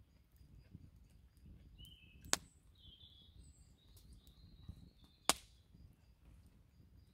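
Wood campfire crackling: a low rush of flames with many small ticks and two sharp, loud pops, about two and a half seconds in and again just after five seconds.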